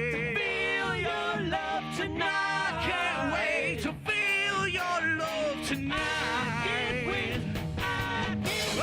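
Live rock band playing an instrumental stretch: drums, bass and guitar, with a lead line that bends and slides in pitch over the top.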